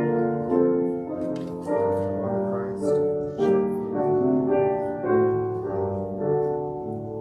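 Slow, soft instrumental music of held chords that change every second or so, with the melody moving above them.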